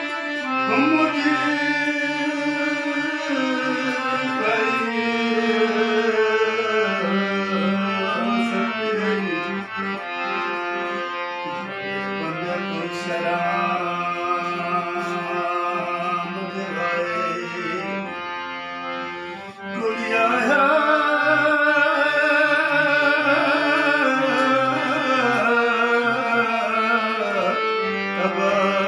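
Harmonium playing a sustained folk melody, its reeds holding chords and melody lines. It briefly drops away just before twenty seconds in, then comes back louder.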